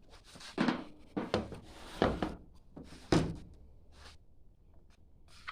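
Four heavy thunks within about three seconds, the last the loudest, each with a short tail.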